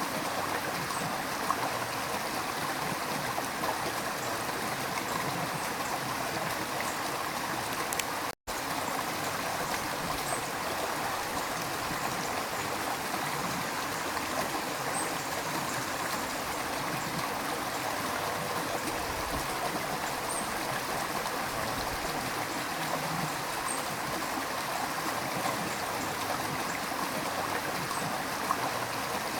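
River stream flowing steadily, water running and trickling. About eight seconds in, the sound cuts out for a split second.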